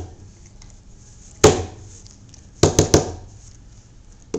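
A large black dog licking and nibbling at its front paw, making sharp mouth smacks: one about a second and a half in, then three quick ones near the end.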